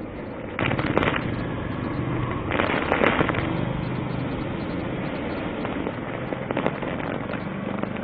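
Cyclone wind and heavy rain: a steady rushing noise that swells into loud crackling gusts about half a second in, again around three seconds, and briefly near the end, the wind buffeting the microphone.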